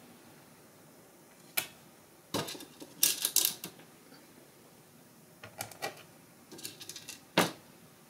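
Small laptop screws clicking and tapping as they are picked up and set into the screw holes of an Asus ROG laptop's bottom cover. The sharp clicks come in a few scattered groups, the loudest a single click near the end.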